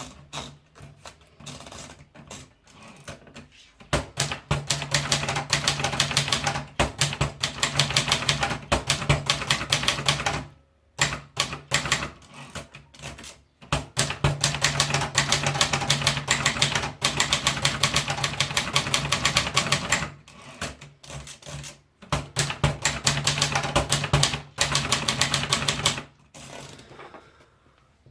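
Brother Deluxe 1300 typewriter being typed on: fast runs of key strikes in three long bursts, with short pauses between them.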